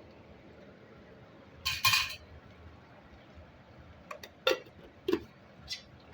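Metal utensils clinking and scraping against cookware: a short clatter about two seconds in, then a few sharp clinks over the next two seconds.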